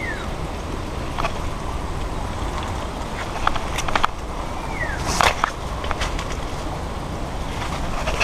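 Leaves and twigs rustling, with scattered small snaps and clicks, as a dart snagged in a shrub is worked free by hand, over a steady outdoor background noise. The loudest rustle comes a little after five seconds, and two short falling chirps sound, one at the start and one near five seconds.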